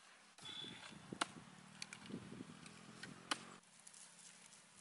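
Faint clatter of dry wood being gathered and handled for a campfire, with two sharp knocks of wood on wood, about a second in and about three seconds in.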